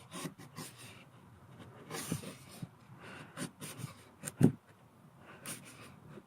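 Light scraping and scattered taps from a freshly sharpened chisel being handled and tried on wood, with one louder knock about four and a half seconds in.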